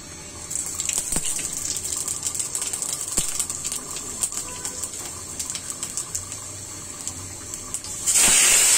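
Panch phoron spice seeds crackling and spitting in hot oil, with many small sharp pops over a steady sizzle from about half a second in. Near the end a much louder, steady sizzle starts abruptly.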